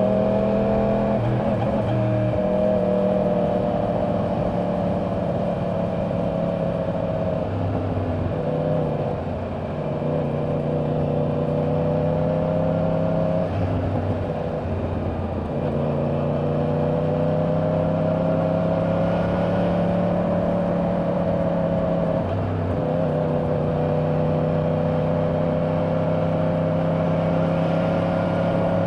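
2024 Yamaha R1's crossplane inline-four engine through its stock exhaust at highway speed, its pitch climbing slowly and briefly breaking off about four times, with wind noise on the microphone.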